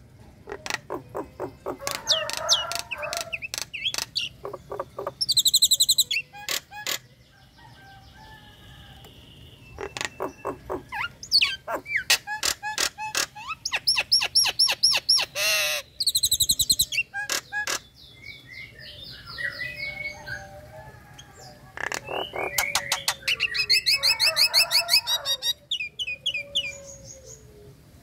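Caged myna singing in bouts of rapid rattling clicks, chattering, fast repeated high trilled notes and short gliding whistles, with pauses of a second or two between bouts.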